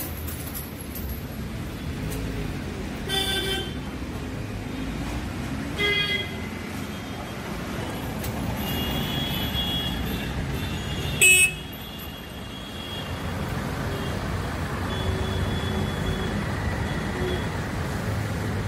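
Steady road traffic rumble with vehicles passing, and short car-horn toots about three and six seconds in. A loud, brief horn blast comes about eleven seconds in.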